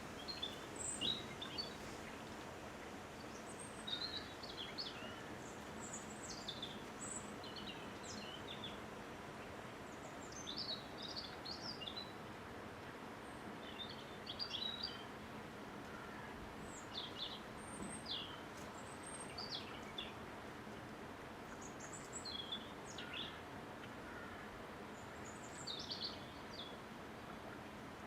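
Small songbirds chirping and twittering in short, high, quick phrases every second or two, over a steady hiss of wind.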